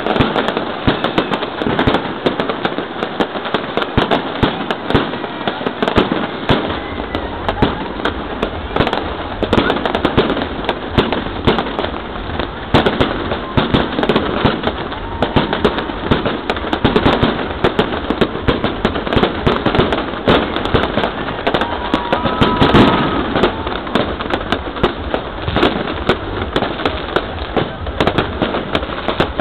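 Fireworks going off in a continuous barrage, many bangs and crackles overlapping with no pause, with the loudest burst about three quarters of the way through.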